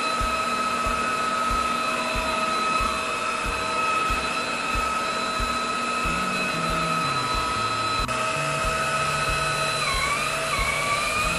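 Electrolux Well Q6 cordless stick vacuum running over a mattress, its motor giving a steady high whine. The pitch sags briefly twice, about two and a half seconds in and again near the end.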